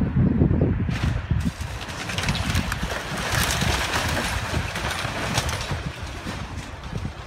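Excavator grapple crunching into the wreckage of a wood-frame house: from about a second in, a dense crackling and splintering of timber and debris over the machine's running engine. Wind rumbles on the microphone at the start.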